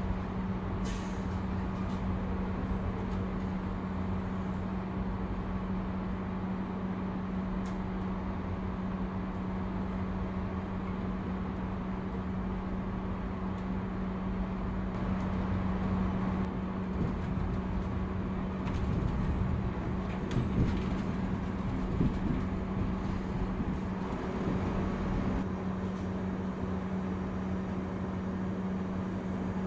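Inside a moving MÁV InterCity passenger coach: the steady rumble of wheels on the track under a constant low hum. Louder rattling and knocks come about two-thirds of the way through.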